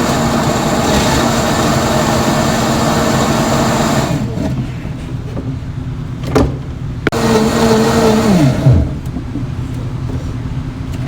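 Countertop blender motor running, puréeing jerk sauce ingredients. It runs steadily, drops to a lower level about four seconds in, gives two clicks, then runs again at a higher pitch and winds down with a falling pitch about nine seconds in.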